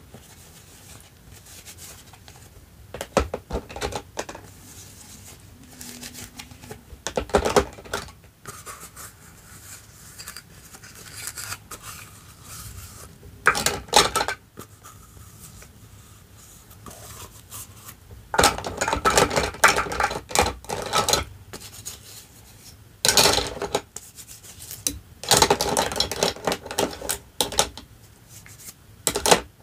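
Small plastic toy kitchen pieces (toy plates, a cup, utensils) handled at a plastic toy sink, clattering and rubbing in scattered bursts, with the busiest handling in the second half.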